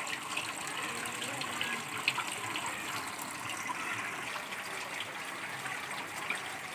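Running water flowing steadily, with a few faint clicks over it.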